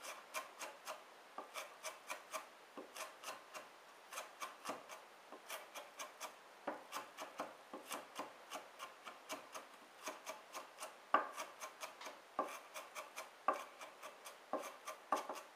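Santoku kitchen knife mincing onion on a wooden cutting board: a steady run of quick chopping knocks, about three a second, with one louder knock about eleven seconds in.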